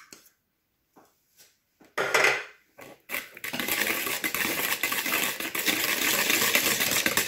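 A few light taps, then from about three and a half seconds in a wire whisk beating runny cake batter in a bowl: a rapid, steady rattle of the metal wires against the bowl.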